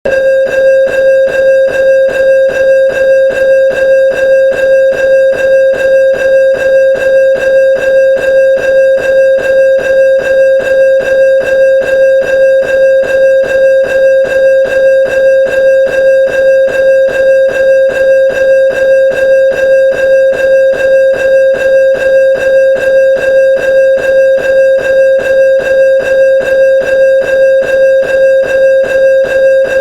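Railroad crossing bell ringing steadily, a single bright tone struck about three times a second in an even, unbroken rhythm.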